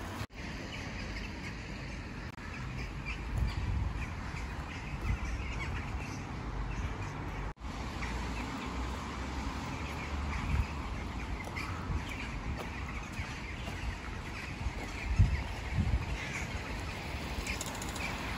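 Street ambience on a walk: a steady low rumble of road traffic with a few soft thumps, and faint bird calls now and then.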